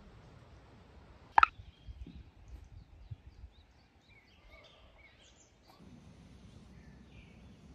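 Scattered short bird chirps over faint background noise. About a second and a half in there is one short, sharp, high sound, the loudest thing heard, followed by a few soft low thumps.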